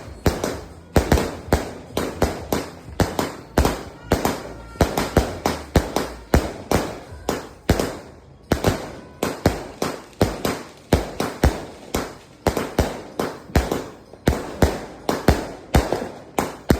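A 100-shot aerial fireworks cake firing shot after shot, about three sharp reports a second, each dying away quickly.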